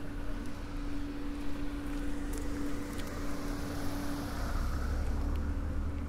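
A motor running with a steady low hum over a low rumble; the hum fades about three seconds in and the rumble swells a second later.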